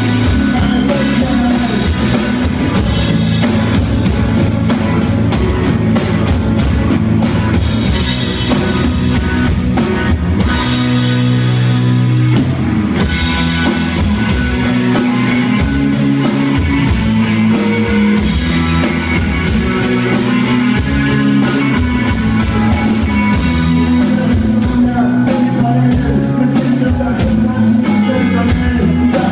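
Live rock band playing loud and without a break: electric guitars, bass guitar and a drum kit.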